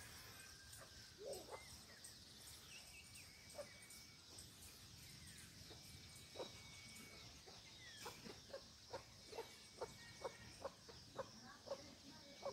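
Faint rural outdoor ambience: a steady high insect drone with a few faint bird whistles. In the second half, a run of faint short taps comes about twice a second.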